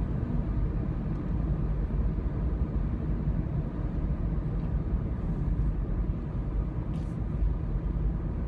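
Steady low road and engine rumble inside the cabin of a moving car, with one faint click about seven seconds in.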